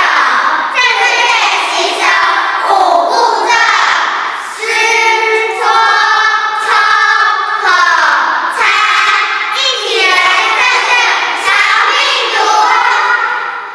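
A group of children singing a song together, the voices fading out near the end.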